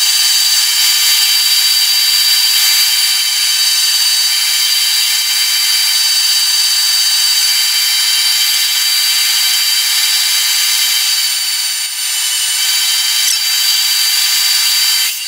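Machine spindle running steadily with a high whine as a drill bit bores a hole through a cast aluminum handwheel hub.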